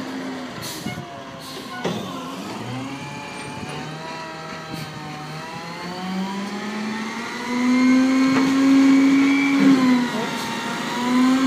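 Heil front-loader garbage truck's diesel engine and hydraulics working as the front arms lift a bin up over the cab to tip it into the hopper. The engine note rises in pitch about six seconds in, then runs louder and steady, with a brief drop near ten seconds.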